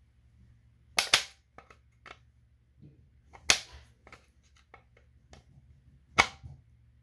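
Sharp snaps and clicks as a small pry bar works parts off a washing machine's pump: a quick double snap about a second in, a loud single one midway, another near the end, with lighter clicks between.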